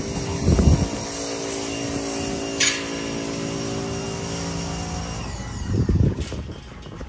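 A motor hums steadily at one pitch, fading out about five and a half seconds in. Two loud low rustling bumps come about half a second in and near the end, and a short high squeak falls in pitch about two and a half seconds in.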